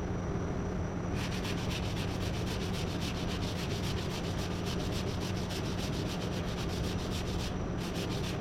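Body filler being hand-sanded with quick back-and-forth strokes, about five a second, pausing briefly near the end before starting again, over a steady low hum.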